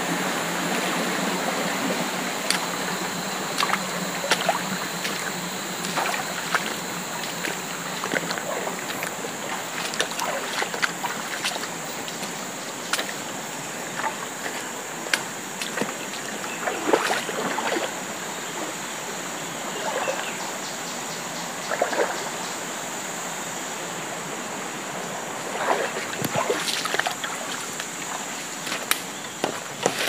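Rushing water of a shallow rocky forest stream, a steady noise that grows slightly fainter, with scattered short knocks and crackles throughout.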